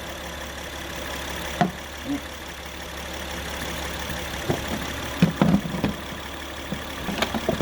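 The 2017 Acura RDX's 3.5-litre V6 idling steadily, run after an oil change to circulate the fresh oil. Over it come scattered clicks and knocks as the air filter is refitted in its housing, the loudest cluster about five and a half seconds in.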